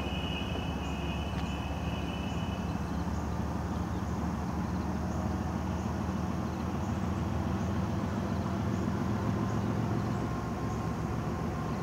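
Diesel freight locomotive running at low speed on its approach, a steady low engine rumble that grows a little louder late on. A high steady two-note whine sounds over it for the first three seconds or so, with faint high chirps scattered throughout.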